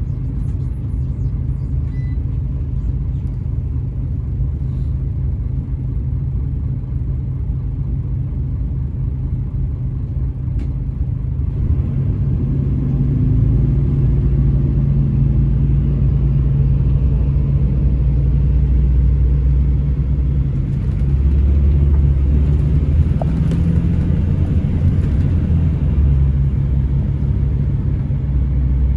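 Scania coach's diesel engine and drivetrain heard from inside the passenger cabin: a steady low drone that gets louder about twelve seconds in as the coach pulls away and picks up speed along the street.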